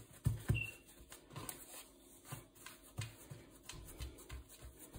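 Hands patting and pressing pizza dough flat on a floured wooden board: soft, dull thumps at irregular intervals, with light rubbing between them.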